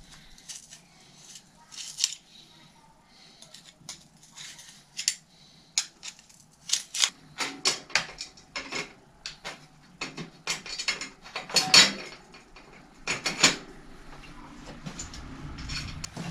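Metal tools and bicycle parts clinking and clattering by hand, an irregular string of sharp clicks and clanks, the loudest about twelve seconds in.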